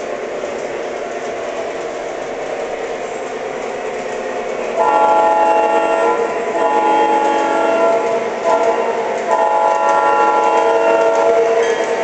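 Model train rolling along its track, then its onboard sound system blows the horn from about five seconds in: two long blasts, a short one and a long one, the grade-crossing signal.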